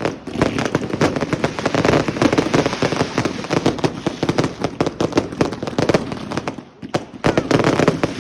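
Fireworks going off close by in a dense, continuous run of rapid cracks and pops, with a brief lull about three-quarters of the way through.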